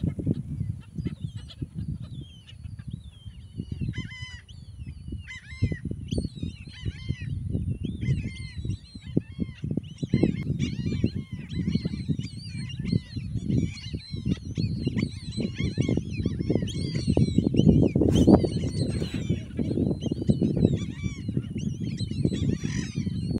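A large flock of terns and other waterbirds calling over and over, many short, sharp calls overlapping. Gusty wind rumbles on the microphone underneath and is loudest a little past the middle.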